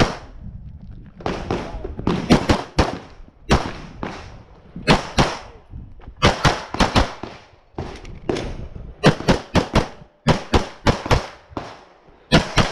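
Rapid pistol shots from a 9mm Glock 34, fired mostly in quick pairs and strings of three or four, with short pauses between groups.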